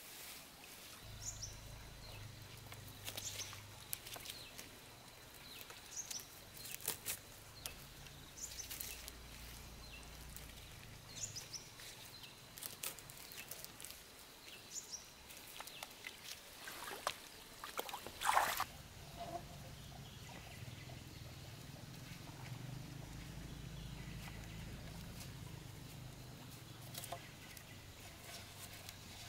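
Fine-mesh nylon fishing net being handled: rustling, light knocks and water sloshing in the shallows. Short high chirps from a bird come every couple of seconds, and there is one louder burst of noise about eighteen seconds in.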